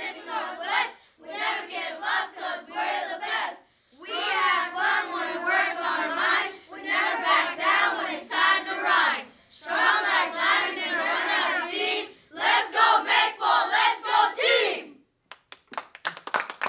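A group of boys chanting together in unison in short loud phrases, then breaking into rapid clapping near the end.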